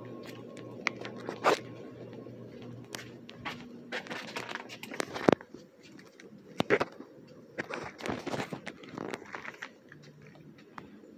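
Emerson Traditional Snugger ceiling fans running with a low steady motor hum, overlaid by irregular crackling, rustling and sharp clicks. The hum fades after about four seconds while the crackles and clicks go on, with loud clicks about a second and a half, five and six and a half seconds in.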